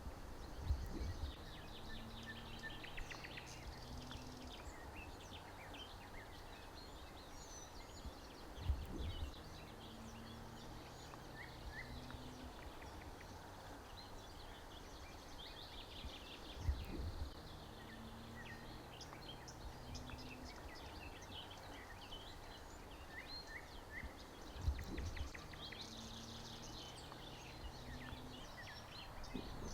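Forest ambience: small birds chirping and twittering throughout. A low thud with a short low hum after it comes back about every eight seconds, four times.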